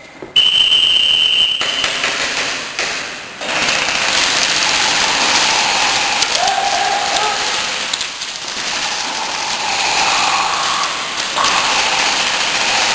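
Airsoft guns firing in rapid bursts, a dense mechanical clatter. A short high steady tone sounds for about a second near the start.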